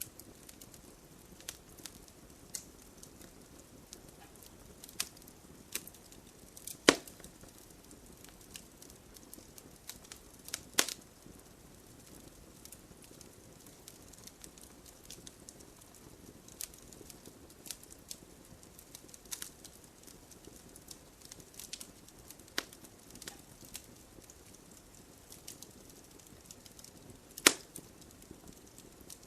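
Firewood logs burning in a fireplace, crackling: irregular sharp pops over a low steady hiss, with three louder pops about 7 and 11 seconds in and near the end.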